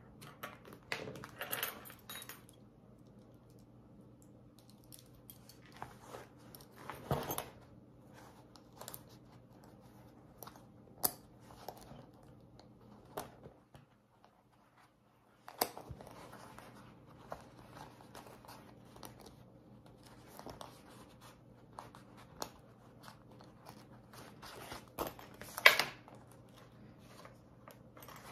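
Hands handling vinyl bag panels and small metal bag hardware: rustling and crinkling of the vinyl with scattered clicks and taps, the sharpest click near the end, over a faint steady hum.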